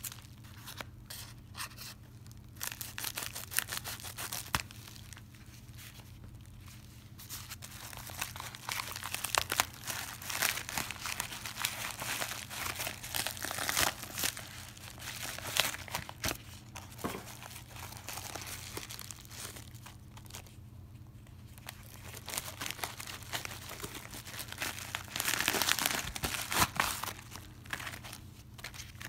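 Hands opening a shipping package: crinkling and tearing of a padded mailer and the paper and plastic wrapping inside, in irregular bursts with a couple of quieter pauses.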